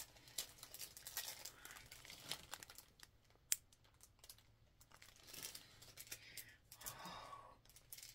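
Thin clear plastic bags holding earrings crinkling as they are handled, with one sharp click about three and a half seconds in.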